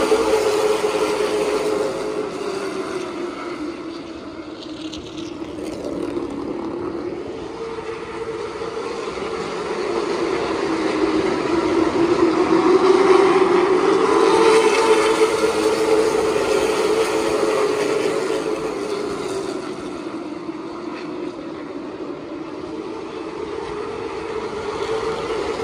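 Late model stock cars' V8 engines running at speed around the oval. The steady drone swells and fades as the field comes around, loudest about halfway through.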